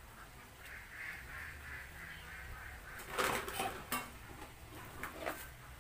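Plastic feed basins and a plastic bag being handled and shifted: a few knocks and rustles from about three seconds in, the loudest just after that.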